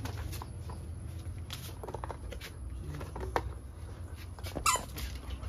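Puppy rummaging in crinkling paper and plastic dog-food packets, with scattered rustles and one short high squeak a little before the end.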